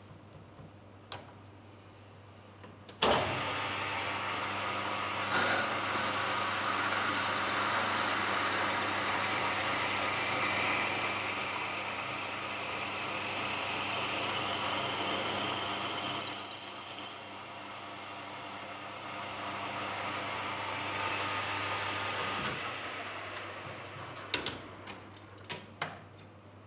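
Workshop lathe switched on and running, louder for about ten seconds in the middle while it cuts, with a faint high whistle, then spinning down. A few sharp clicks follow near the end.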